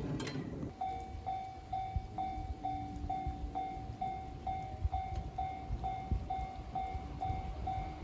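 Japanese railway level-crossing warning bell starting about a second in and ringing steadily, about two clangs a second, over an uneven low rumble.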